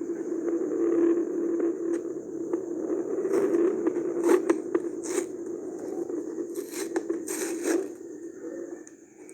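Packaging being handled and opened: short bursts of scraping, tearing and crinkling, over a steady low hum.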